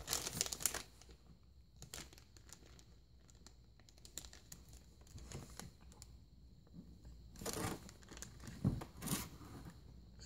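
Crinkly silver foil bag rustling as a baby grabs and waves it. There is a loud burst of crinkling at the start, quieter handling through the middle, and more bursts near the end.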